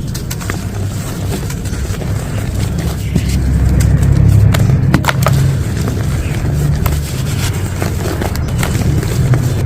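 ASMR crumbling of a sand-like material close to the microphone: many small, crisp crackles and snaps over a heavy low rumble that swells near the middle.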